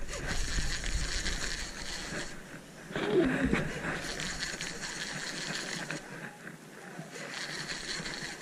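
Handling noise of a fishing rod and reel held right against the microphone, over a steady hiss of wind, with a short voice sound falling in pitch about three seconds in.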